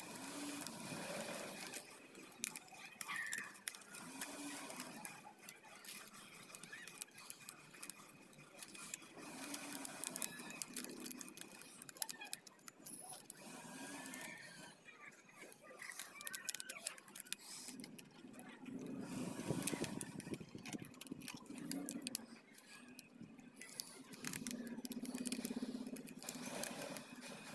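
Thin plastic bottle strips crinkling and clicking as they are handled, bent and tied with thread, with faint pitched calls in the background.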